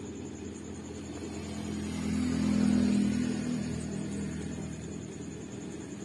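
A low engine rumble that swells to a peak about halfway through and then fades away.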